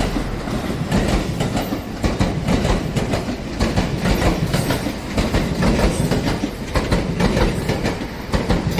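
Train passing, its wheels clattering over the rail joints in a rapid, uneven run of clicks over a steady rumble.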